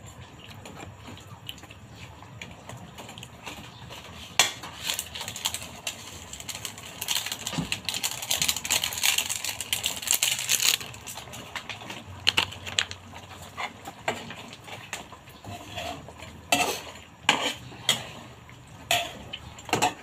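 Metal cookware clatter: a ladle clinking, knocking and scraping against a metal pan and pots in irregular strikes, busiest around the middle.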